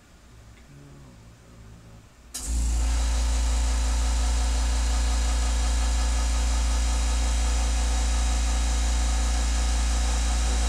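A machine switches on suddenly about two seconds in and then runs steadily, a deep hum with a hiss over it.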